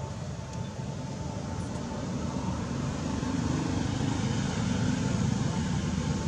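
Steady low outdoor rumble that swells a few seconds in, with a faint steady high hum above it.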